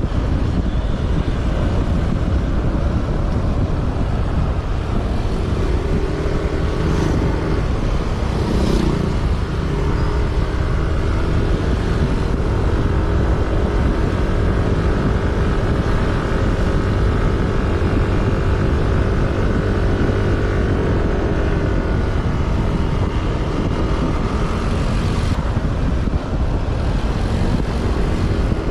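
Motor vehicle on the move: steady engine and road noise, with an engine drone of near-constant pitch standing out from about five seconds in until near the twenty-second mark.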